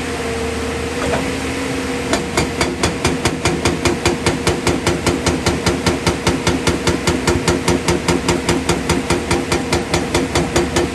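JCB hydraulic rock breaker on an excavator hammering into rock, starting about two seconds in and going at a fast, even rate of about four to five blows a second, over the excavator's diesel engine running.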